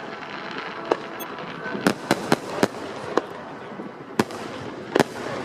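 Aerial fireworks shells bursting overhead: sharp bangs at irregular intervals, about eight in a few seconds, with a cluster around two seconds in and a loud one near the end, over a steady background rumble.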